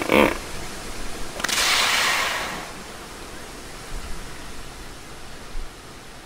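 The last pulse of a hippopotamus's honking call, then a short rushing, breathy blast about a second and a half in. After that comes steady hiss until the next call.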